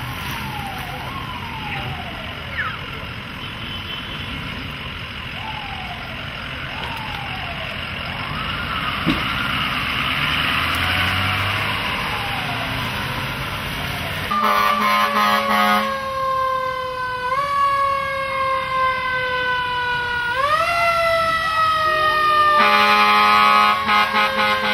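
Emergency vehicle sirens: in the first half a siren sweeps down in pitch over and over. From about halfway a louder fire-truck siren slowly winds up and down, with low blasts of an air horn twice.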